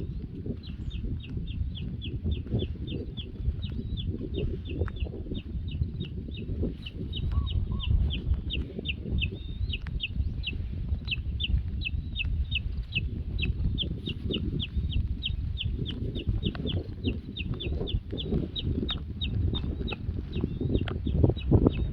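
Wind rumbling and gusting on the microphone, with a bird repeating a short, high falling note about three times a second throughout.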